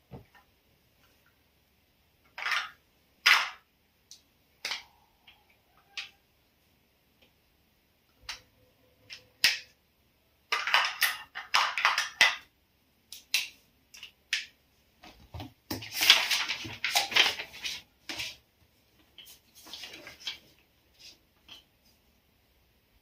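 Intermittent handling noises: a few sharp clicks and knocks, and bursts of rustling or rubbing that last a second or two, the longest around the middle and again about two-thirds of the way through.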